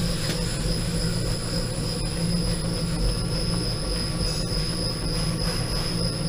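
RuidCar suspension shaker rig running under a Ford Focus: a steady low mechanical hum, with a few faint clicks. The rig is rocking the car to bring out a suspension knock.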